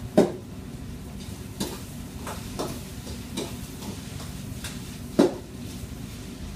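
Metal ladle clanking and scraping in a wok while stir-frying noodles: two loud clanks about five seconds apart, with lighter knocks between. Underneath are a steady low rush and a sizzle.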